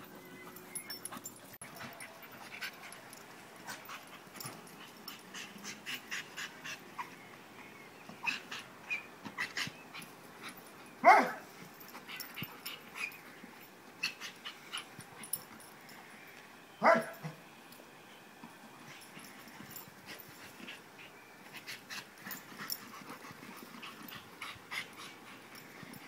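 Two dogs playing, with one dog giving two short, loud barks about six seconds apart. Between the barks there is quieter panting and many small scuffling sounds.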